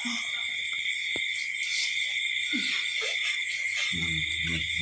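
Steady, continuous chirring of night insects such as crickets. A low pitched sound comes in near the end.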